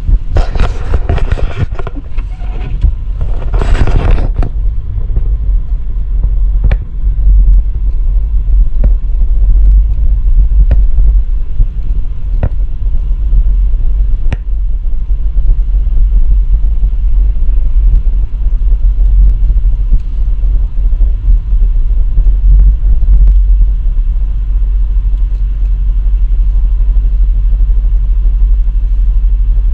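Car driving slowly on a snowy road, heard from inside the cabin: a loud, steady low rumble, with two short bursts of rushing hiss in the first few seconds and a few faint sharp ticks about every two seconds around the middle.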